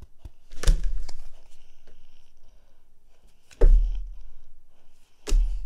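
Three dull thumps from handling trading cards: about a second in, in the middle (the loudest), and near the end, with faint scratchy card handling between.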